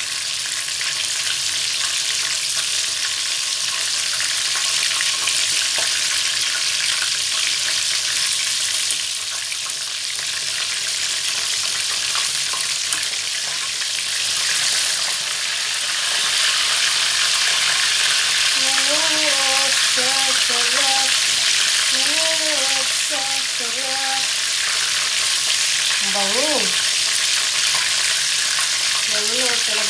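Breaded chicken pieces frying in hot oil in a pan: a steady, continuous sizzle, with metal tongs now and then tapping and scraping the pan as the pieces are turned. A voice is briefly heard in the background past the middle.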